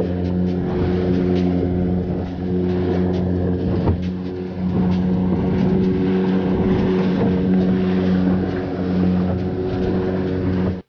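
Small outrigger fishing boat's engine running at a steady speed with an even, unchanging drone, cutting off abruptly at the very end.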